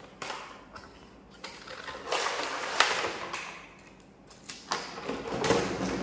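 Cardboard toy box being opened and its plastic insert tray pulled out, rustling and scraping in several bursts with a few knocks. The longest bursts come about two seconds in and again near the end.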